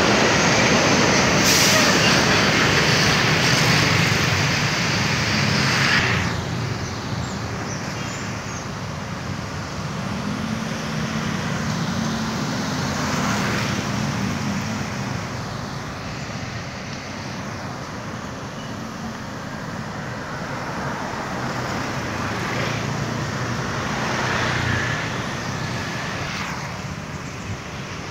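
Road traffic of buses, cars and motorbikes with engines running. A large bus passes close in the first few seconds with a loud rush of engine and tyre noise. The traffic then settles to a steadier hum, and another vehicle passes close near the end.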